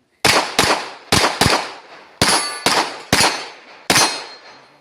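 Semi-automatic firearm firing eight rapid shots, several in quick pairs about a third of a second apart. A brief metallic ring follows one shot about two seconds in.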